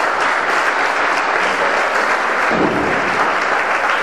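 Audience applauding steadily, with the dense patter of many hands clapping.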